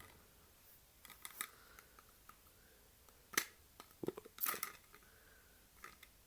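Handling noises from a small assembled display piece being set and adjusted on a tabletop: a few light clicks, one sharp click about three and a half seconds in, then a short cluster of clicks and rustles just after four seconds.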